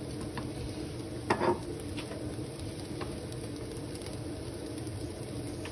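Tofu cubes sizzling quietly in a frying pan over moderate heat, with a few light knife taps on a wooden cutting board as green beans are cut, and one louder short knock about one and a half seconds in.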